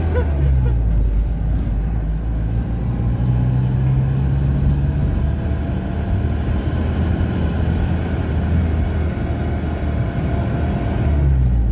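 Engine and road noise of an old, rickety vehicle driving along: a steady, low engine drone.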